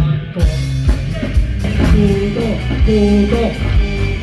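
Rock band playing: a drum-kit beat with bass and guitar under a melody line that bends in pitch.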